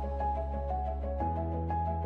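Background music: held bass notes under a quick run of short melodic notes, the bass shifting to a new note about a second in.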